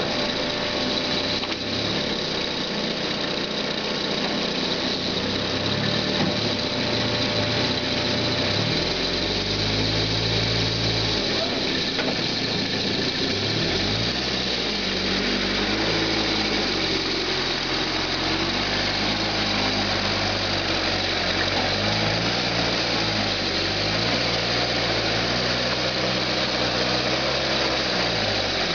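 Engine of a homemade forest forwarder running, revving up and down repeatedly from about nine seconds in, with a steady high whine over it.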